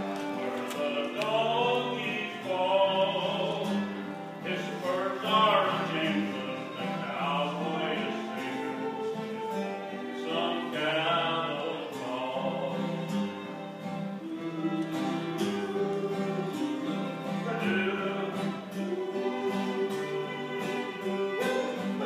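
Acoustic guitar and fiddle playing a slow country tune, the fiddle sliding between notes over the guitar's steady chords.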